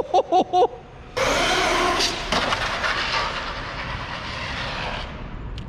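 Electric RC monster truck running: a few quick throttle blips of motor whine, then about a second in a sudden loud rush of motor and tyre noise on pavement that fades away over the next few seconds.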